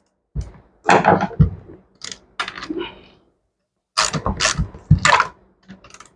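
Metal clicking and rattling from the chainsaw's bar and chain being worked on by hand as the bar nuts are tightened and the chain tension checked. It comes in several short bouts, the loudest about four to five seconds in.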